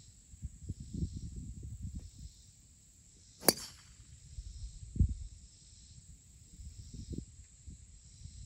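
A golf driver striking a ball off the tee about three and a half seconds in: one sharp, high click. Wind rumbles on the microphone, with a faint insect buzz pulsing about once a second.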